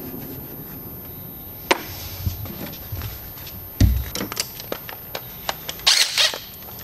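Scattered clicks and knocks of hand tools and loose metal bolts being handled while unbolting an engine's upper intake manifold, with a heavy thump a little before the four-second mark and a short metallic clatter about six seconds in.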